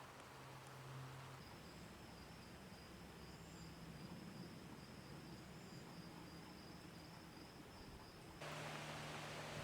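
Faint background with a thin, high, evenly pulsing insect trill. A low hum is heard in the first second and a half, and a louder steady hiss starts suddenly near the end.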